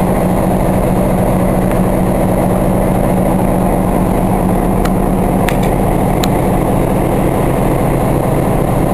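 EMD SW7 switcher locomotive's 12-cylinder 567 diesel engine idling steadily, with three brief sharp clicks around the middle.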